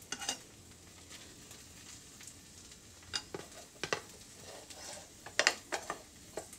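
Chijimi (Korean savoury pancake) frying in a pan with a faint sizzle, while a cooking utensil knocks and scrapes against the pan in scattered clicks, the loudest about three and five and a half seconds in.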